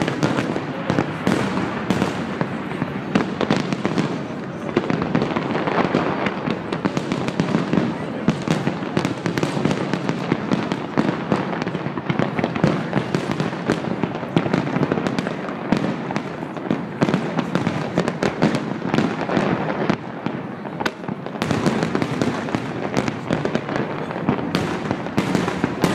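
Fireworks display going off without pause: a dense, continuous stream of bangs and crackles, with onlookers' voices mixed in.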